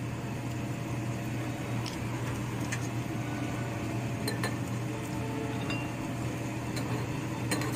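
Ramen broth simmering in a frying pan, with scattered small pops and ticks over a steady low hum.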